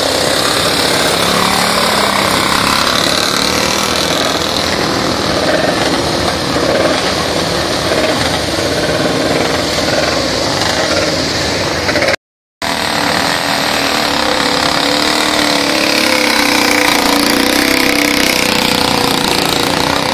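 Vintage motorcycle engine running loud and hard as the bike climbs a steep hill.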